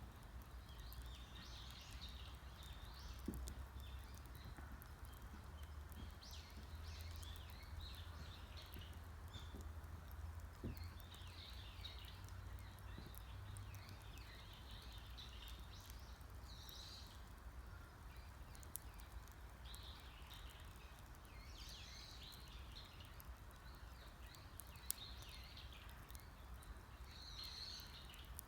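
Faint birdsong in woodland, with short chirping calls repeating throughout, over the occasional sharp pop of a crackling wood campfire and a low steady rumble.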